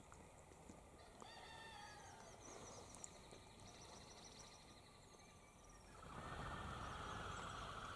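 Faint bird calls chatter from about a second in. From about six seconds comes a steadier, louder whirring whistle: the wings of crested pigeons taking off.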